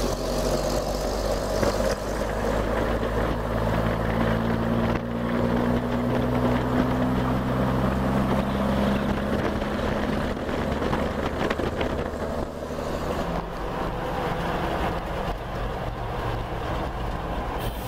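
Old fire engine's Waukesha gasoline engine running under way, heard from the cab with a really low engine gurgle. Its note rises slowly as the truck gathers speed, then eases off about two-thirds of the way through, with road and wind noise underneath.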